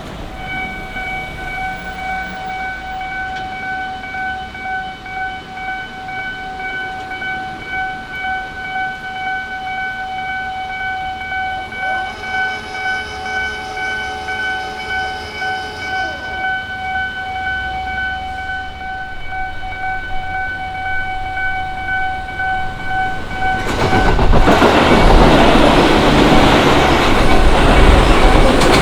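Japanese level-crossing alarm with an unusual tone, a single pitch ringing in quick repeated pulses about twice a second. A second tone rises and falls for a few seconds in the middle. About 24 seconds in the ringing gives way to the loud rumble of a Tobu Noda Line train passing over the crossing.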